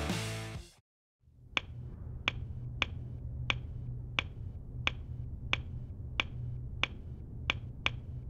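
Music fades out in the first second. After a brief silence come sharp clicks at an even pace, about three every two seconds, eleven in all, over a low steady hum.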